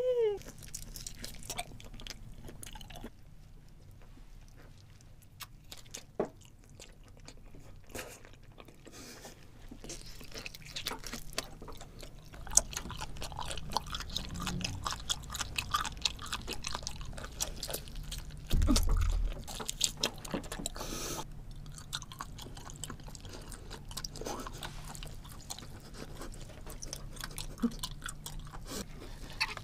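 A person biting and chewing a grilled giant octopus tentacle: many small wet clicks and crackles of chewing, with a brief low thump about 19 seconds in.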